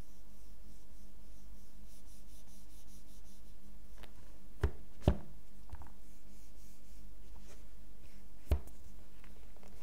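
Hand sliding and rubbing a cardboard Google Pixel 6 box on a tabletop, with three short knocks of the box or fingers against the table, two close together near the middle and one near the end, over a steady low hum.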